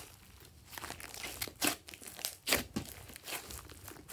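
Pink glossy slime being pressed and stretched by hand, giving a soft sticky crackle with a handful of sharp, irregular pops as trapped air squeezes out of it.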